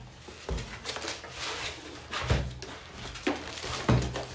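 Laptop packaging being handled: cardboard and foam end caps are pulled off a laptop in a plastic sleeve, with rustling and several short knocks against a table.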